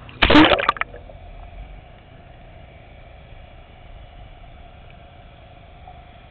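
A loud splash as the camera is plunged through the sea surface, lasting about half a second, followed by muffled underwater noise with a faint steady hum.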